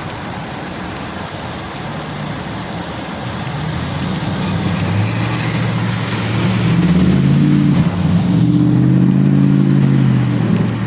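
A car engine growing louder from about four seconds in and running loud near the end, its pitch shifting a few times, over a steady hiss.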